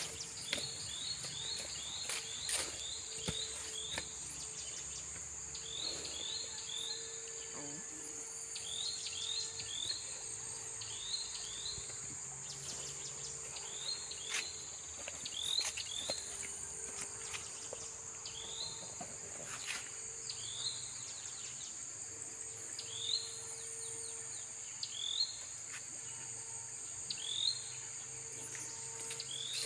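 Steady high-pitched insect drone with a bird repeating short chirps over it, in quick runs of three or four at first and then single notes about every two seconds. A few soft clicks and crackles come and go, like footsteps on dry leaves.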